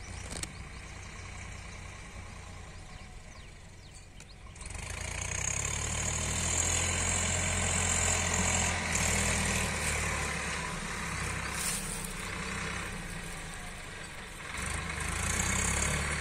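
Swaraj 744 FE 4WD tractor's diesel engine running as the tractor drives towing a trolley, growing clearly louder about four seconds in, easing off past the middle and swelling again near the end.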